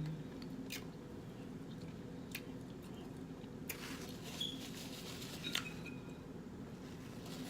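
Close-up eating sounds: wet chewing, squishy mouth smacks and a few small clicks, spaced irregularly over a steady low hum.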